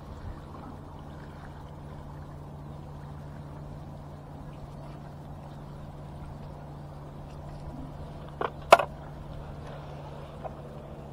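Seawater washing against breakwater blocks over a steady low hum, with two sharp knocks, the loudest sounds, about eight and a half seconds in.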